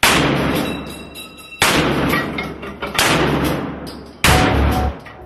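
Four loud bangs about a second and a half apart, each ringing out before the next. These are sound effects of a staged police raid.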